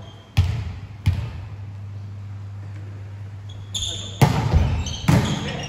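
Volleyball being played in a gymnasium: four sharp slaps of hands on the ball, two in the first second or so and two more later in the rally, with players shouting calls around the later hits. A steady low hum runs underneath.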